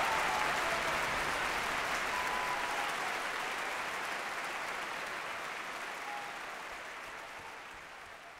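Applause from an audience, a dense even clapping that fades out steadily.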